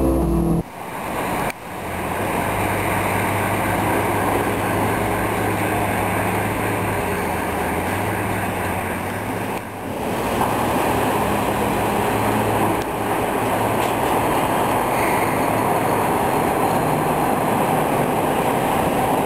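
Steady rumble of vehicle engines and traffic, with a low hum that shifts pitch slightly. It drops out briefly near the start and again about ten seconds in.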